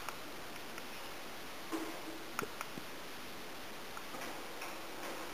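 Pet fancy rat nibbling a small treat: a few faint scattered clicks, clustered about two seconds in, over a steady low hiss.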